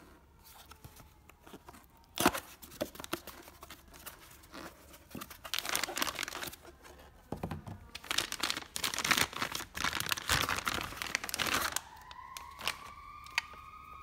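A plastic wrapping bag crinkling and tearing as a packaged part is unwrapped by hand from a cardboard box. Irregular crackles start about two seconds in, are loudest through the middle, and stop near the end, leaving a faint steady tone.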